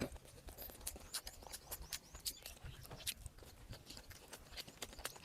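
Close-up mouth sounds of noodles being eaten: irregular wet clicks and smacks of chewing, several a second, with a few short high squeaks.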